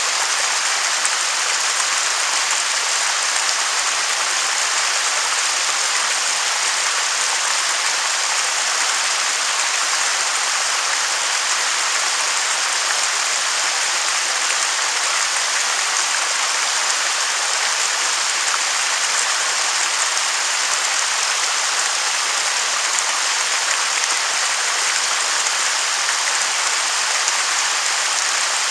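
A waterfall's water pouring and splashing: a steady, bright hiss with little low rumble, unchanging throughout.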